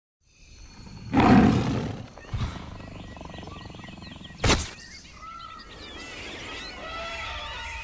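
A tiger roar, the loudest sound, starting about a second in and lasting under a second, followed by a sharp crack midway and birds chirping in the last few seconds.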